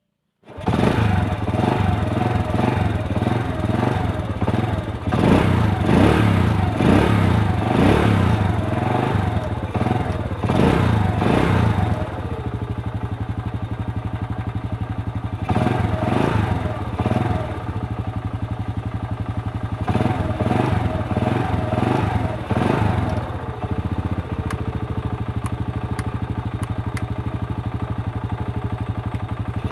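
Honda 100cc single-cylinder four-stroke motorcycle engine, fitted with a racing spark plug, running after being started. It is revved in repeated short blips for about the first twenty seconds, then settles to a steady idle. The rider is testing throttle pickup with the new plug.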